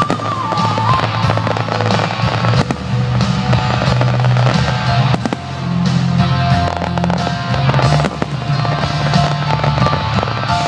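Fireworks display: aerial shells bursting in a rapid string of bangs and crackles, heard over loud music from the display's sound system.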